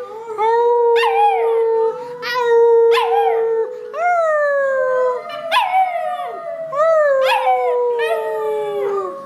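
Cocker spaniel puppy howling along in short, high, falling howls about once a second, over a long held note that stays steady for the first few seconds and then bends slowly lower.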